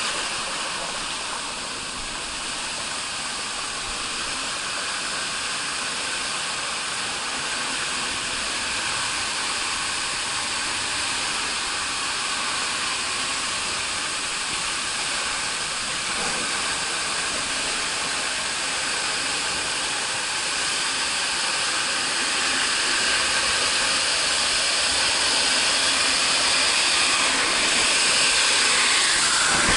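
Rushing, splashing water of a water-park tube ride's channel, a steady hiss that grows louder over the last several seconds as the tube nears the slide chute.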